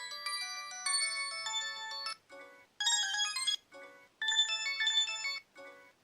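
A Samsung D900i mobile phone playing one of its preloaded ringtones: a bright electronic melody in short phrases with brief pauses between them.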